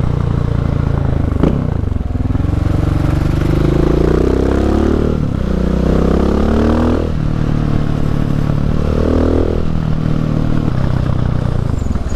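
KTM 690 SMC R supermoto's single-cylinder engine pulling hard through an open exhaust with its dB-killer baffle removed, rising in pitch in three accelerations with a sharp drop at each gear change. A single sharp click about a second and a half in.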